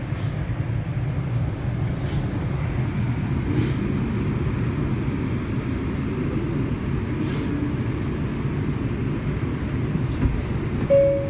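Steady rumble of a New York City subway car heard from inside as the train moves off after its doors close, with a few faint clicks. A brief two-note falling chime sounds near the end.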